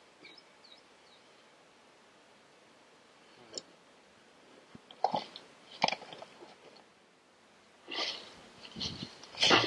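Dry leaf litter crunching and rustling in short, irregular bursts as someone moves and handles gear on the woodland floor. The crunching becomes denser and louder in the last couple of seconds as a boot scuffs through dry beech leaves.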